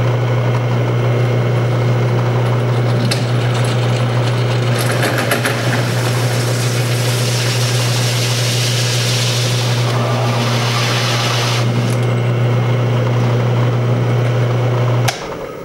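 Drill press running with a hole saw cutting through a plastic bucket lid: a steady low motor hum under a rasping cutting noise that grows brighter and harsher about halfway through. About 15 seconds in, the motor is switched off and winds down.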